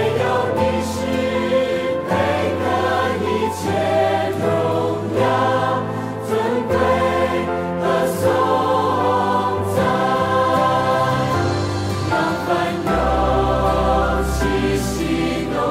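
Worship music: a hymn sung by a choir in several voices over instrumental accompaniment, with sustained notes and a steady bass line; a deeper bass note comes in near the end.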